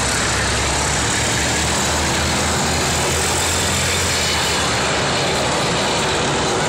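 Heavy tracked military vehicles driving past, their engines running in a steady low drone under a constant loud noise.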